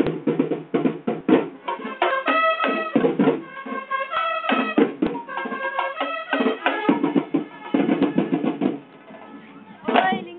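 Festival percussion band drumming for street dancers, with held melodic notes sounding over the drums in places and voices mixed in. The drumming drops away briefly near the end, then comes back.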